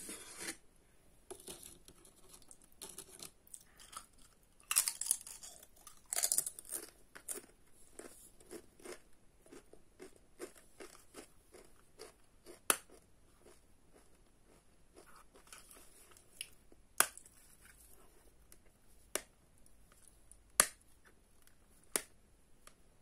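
Close-up handling of a small blue case: scattered sharp clicks and taps, with bursts of scratchy rustling about five and six seconds in, and several louder single clicks in the second half.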